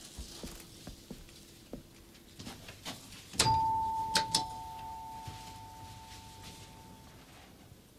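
Two-tone doorbell chime, ding-dong: a higher note struck about three and a half seconds in, then a lower note less than a second later, both ringing out and fading over about three seconds.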